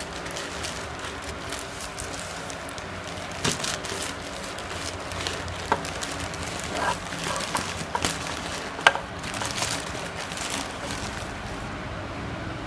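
Small product box and its packaging being opened and handled by hand: irregular rustles, clicks and taps, with an occasional brief squeak.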